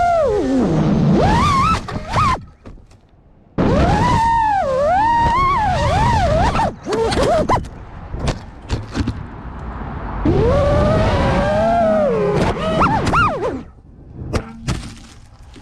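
FPV drone motors and propellers whining, the pitch swooping up and down with throttle. The whine cuts off abruptly three times, with knocks and clatter as the quad crashes.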